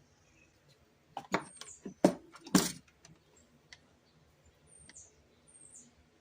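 A few sharp knocks and clicks of something being handled and set down, clustered between about one and three seconds in, with faint short bird chirps in the background.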